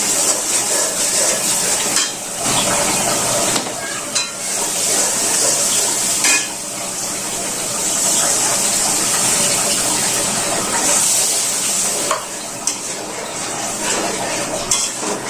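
Food sizzling in a pan while a metal spoon or spatula stirs it, scraping and clinking against the pan.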